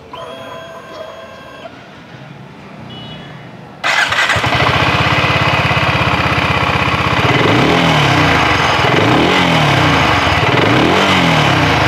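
BSA Gold Star 650's 652 cc single-cylinder engine starting: a couple of short electronic beeps, then about four seconds in it catches and settles into a steady idle. It is then revved three times, the pitch rising and falling with each blip of the throttle.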